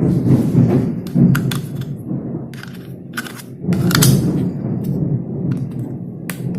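Hard plastic dashcam parts being handled and fitted together: a run of sharp clicks and knocks over a low rumble of handling noise, loudest just after the start and around four seconds in.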